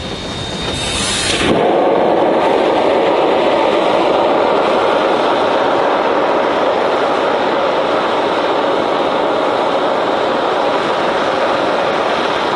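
Shay geared steam locomotive blowing down its boiler: a loud, steady hiss of steam and water jetting from the blowdown valve. It starts abruptly about a second and a half in.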